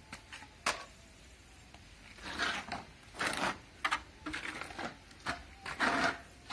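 Flat plastering trowel scraping and rubbing a wet cement skim coat onto a plastered pillar, in a run of irregular strokes starting about two seconds in, with a short tap less than a second in.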